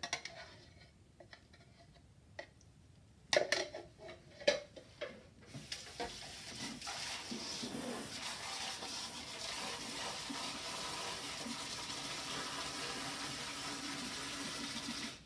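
A few knocks and clatters, then water running steadily from a tap for about ten seconds, stopping suddenly at the end.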